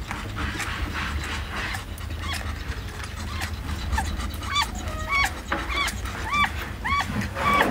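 Newborn kittens mewing: short, thin, high-pitched squeaks repeated about twice a second, starting a couple of seconds in.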